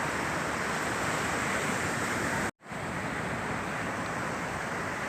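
Sea surf and wind: a steady rush of noise that cuts out completely for a moment about two and a half seconds in.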